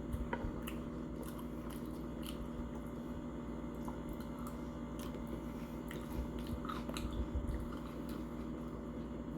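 Close-up chewing of mini tacos: soft crunches of fried tortilla shells and wet mouth clicks, scattered irregularly, with a few firmer bites in the latter half. A steady low hum sits underneath.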